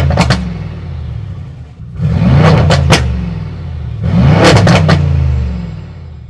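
Mercedes-AMG G63 twin-turbo V8, Mansory-tuned with side-exit exhaust in Sport Plus with the exhaust flaps open, revved hard in the stationary car three times, about two seconds apart. Each rev climbs, cracks sharply at the top and falls back toward idle.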